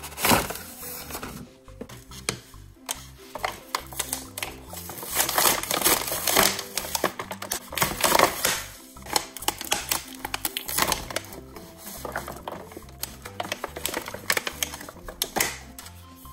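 Clear plastic blister packaging crinkling and crackling in irregular bursts as it is pulled away from a toy set, over background music.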